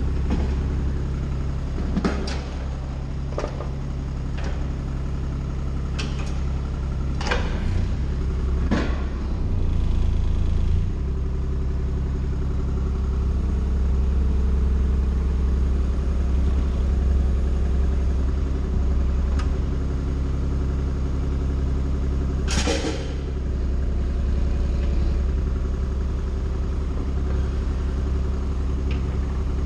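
An engine running steadily with a low hum, changing note briefly about ten seconds in, with a series of sharp clanks and knocks over the first nine seconds and one louder one a little past twenty seconds in.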